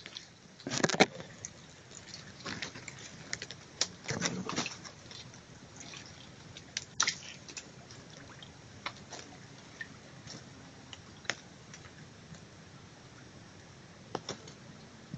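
Irregular clicks and crackles of leaves and grass stems brushing close to the microphone, with denser bursts about a second in and around four seconds, over a faint steady hiss.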